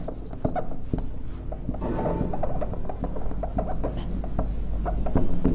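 Marker pen writing on a whiteboard: a run of short, irregular scratching strokes as a word is written out.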